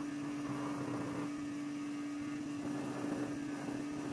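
Electric pet hair clipper running with a steady hum while trimming a poodle's coat.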